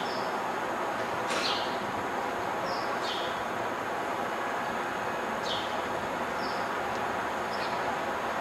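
Steady outdoor din of heavy demolition machinery and the surrounding city, with a small bird's short high chirps every second or two and a single sharp click about a second in.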